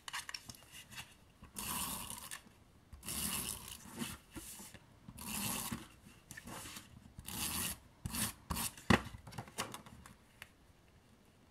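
Adhesive tape runner drawn across paper in a series of short strokes, a dry rasping sound each time, about six in all, with a sharp click about nine seconds in.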